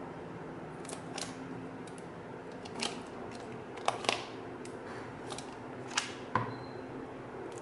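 Handling noise from a white iPad (4th generation) still in its plastic protective film: a scattering of sharp clicks and taps as fingers grip and touch the tablet and it is set down on a wooden desk, over a steady low hum.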